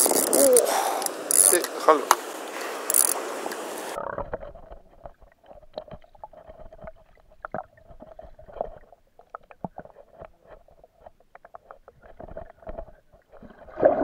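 Rushing water and wind noise for the first few seconds. Then the sound turns suddenly dull and muffled as the camera's microphone goes underwater: scattered small clicks and knocks over a faint steady hum.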